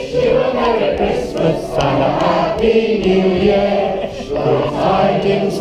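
A stage cast singing together as a choir, holding long notes, with acoustic guitar accompaniment.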